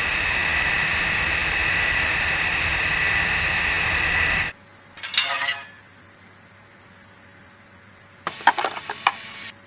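A small electric pump motor whirs steadily, with a thin high whine, while fuel runs into the miniature tanker; it stops abruptly about four and a half seconds in. After that a quieter, high, even pulsing trill goes on, broken by a few light clicks.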